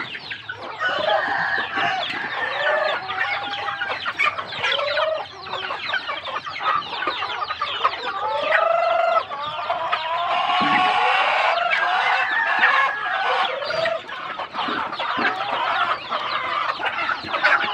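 A flock of chickens clucking and calling over one another without a break. Short rising-and-falling calls recur every second or so, with one longer call about eight and a half seconds in.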